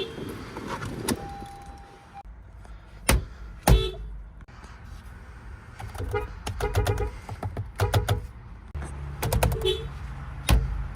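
Honda car horn sounded in quick bursts of short toots, several taps in a row each time. A few sharp knocks fall between the bursts, over a low steady rumble.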